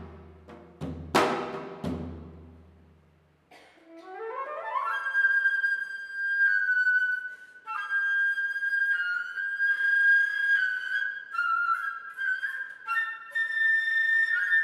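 A janggu (Korean hourglass drum) strikes twice, each stroke ringing low and dying away. About three and a half seconds in, a flute enters with a fast rising run, then plays high held notes broken by quick alternating figures.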